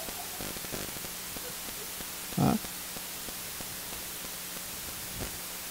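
Steady hiss with a faint low hum, with one short burst of a voice about two and a half seconds in.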